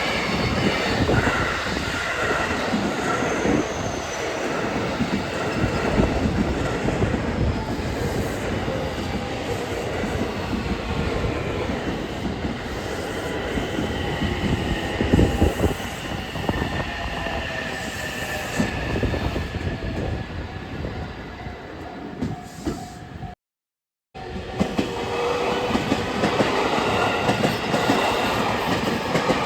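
Train running on the rails: a dense rumble and clatter with high whining tones above it. The sound breaks off at a short silent cut about 24 seconds in, then train sound resumes.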